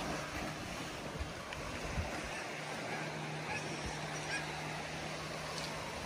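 Wind and gentle surf on a beach, a steady hiss, with a low steady hum from a distant motorboat and a few faint seabird calls around the middle.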